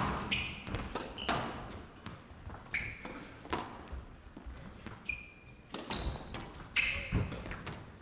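Squash ball being hit back and forth in a fast rally, a sharp crack of racket or wall about every second, with short high squeaks of court shoes on the wooden floor between shots.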